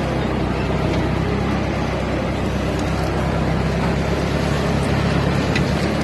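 1958 Massey Ferguson tractor's engine running steadily as the tractor is driven along, a low even drone with no change in pace.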